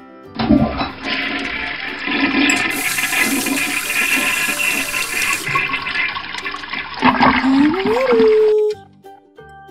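Toilet flushing: a rush of water that starts about half a second in and lasts about eight seconds, with a rising tone near the end before it cuts off suddenly.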